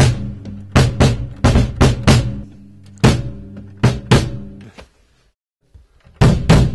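Yamaha bass drum kicked with a foot pedal in a slow rhythm of single and doubled beats, each with a low ringing boom. The beats stop for about a second near the end, then start again.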